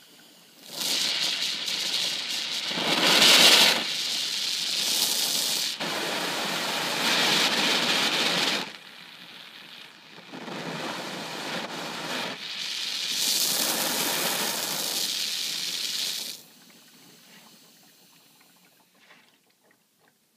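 HHO (oxyhydrogen) torch flame turned up high and burning with a loud rushing hiss. It comes in two long spells, about 8 and 6 seconds, with a brief drop between, and cuts off sharply.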